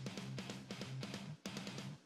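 Background music with a steady drum beat, dropping out briefly about one and a half seconds in.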